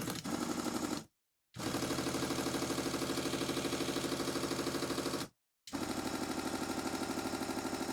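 Small electric motor of a mini 3-in-1 desktop belt sanding and polishing machine running at its low speed setting, with a fast, even pulsing of about nine beats a second. It runs in three stretches separated by two brief breaks where the sound cuts off abruptly.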